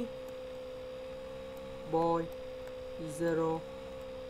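Steady electrical hum, a constant single-pitched drone. Two brief voiced hesitation sounds break in, about two and three seconds in.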